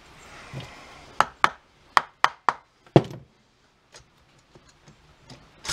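Sharp knocks as the aluminium cylinder head of a 1975 Honda XL100 single-cylinder engine is worked loose from the cylinder by hand: six loud knocks in quick succession, the last the loudest, then a few lighter taps and clinks.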